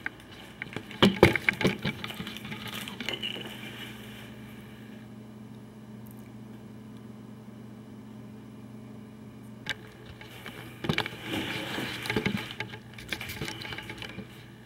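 Handling noise from a handheld camera: rustles and knocks as it is moved about, over a steady low electrical hum. The handling comes in two bursts, about a second in and again from about eleven to thirteen seconds, with single sharp clicks near ten and eleven seconds.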